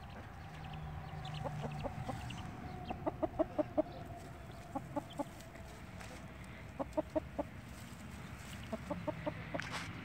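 Mother hen clucking softly in short runs of three to five quick clucks, several times over.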